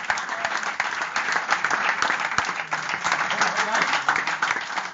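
A roomful of people applauding steadily, with voices mixed in.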